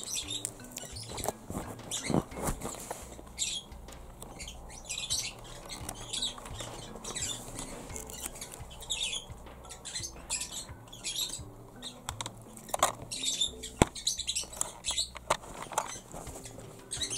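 Hands handling a plastic Polly Pocket playset: irregular scratchy rustling with sharp little plastic clicks and taps throughout.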